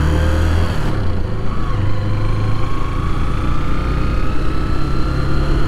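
Motorcycle engine under way, pulling through the gears with its pitch rising steadily from about two seconds in.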